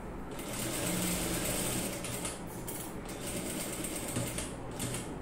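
Electric sewing machine running steadily as it topstitches through the dress fabric and its lining, starting about half a second in, with a few short breaks where the stitching pauses.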